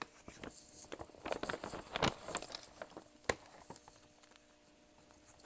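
Brown paper gift bag rustling and crinkling as hands rummage inside it, with scattered sharp crackles and taps; the two loudest come about two and three seconds in.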